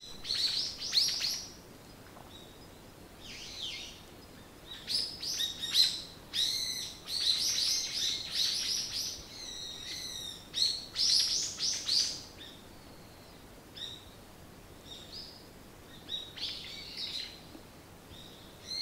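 Small wild birds chirping and calling in quick bursts of high notes and short trills, densely for the first twelve seconds or so, then as sparser single chirps.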